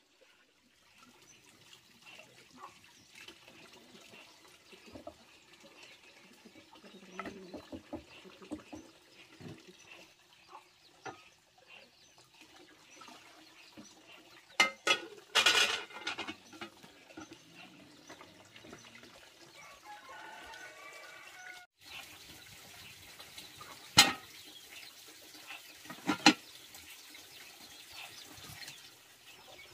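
Dishes being washed by hand in a basin: water splashing and small metal clinks, with a loud burst of clattering bowls about halfway through. Near the end there is a steadier hiss with two sharp knocks.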